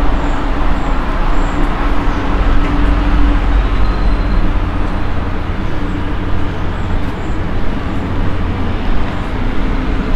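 Wind rumbling on the microphone: a loud, steady low rumble that swells and eases, with a faint steady hum over the first few seconds.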